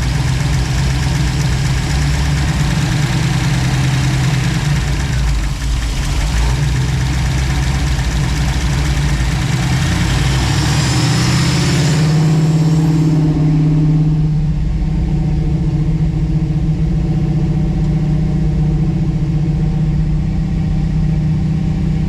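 1967 Chevy Nova's engine idling steadily on a newly fitted FiTech fuel-injection system. About 12 seconds in the note briefly lifts, and soon after the higher hiss over the engine drops away.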